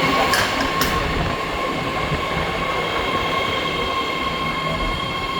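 BART subway train running through the underground station: a dense rumble with a steady high whine and wheel squeal, a higher tone joining about halfway through. Two sharp clicks sound near the start.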